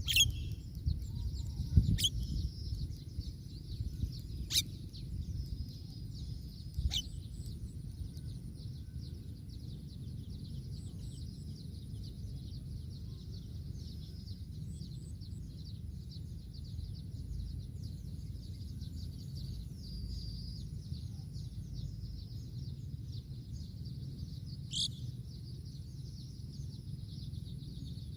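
Birds chirping continuously in a dense, high chatter, with a few louder sharp calls standing out: several in the first seven seconds and one near the end. A low rumble of wind or background noise runs underneath.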